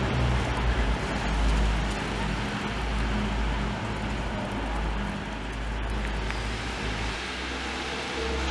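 City bus engine running as the bus pulls away, mixed with passing traffic on a wet street: a steady low rumble that eases a little after the middle.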